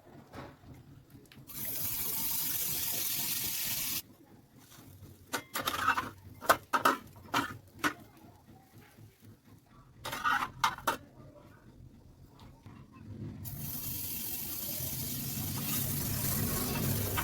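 Water tap running into a sink in two stretches, with a run of sharp clattering knocks between them. The second stretch of running water grows gradually louder.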